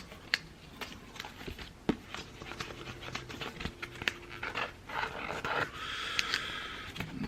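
Cardboard lobby cards and packaging being handled and pushed back into their holder: scattered light clicks and taps with soft rustling, and a longer scraping hiss from about six seconds in.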